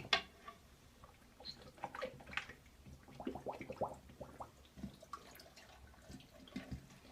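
Dog blowing bubbles in water: faint bubbling, drips and small splashes in short, irregular bursts.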